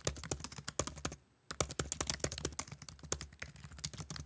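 Fast typing on a computer keyboard: a dense run of key clicks with a short pause a little after a second in.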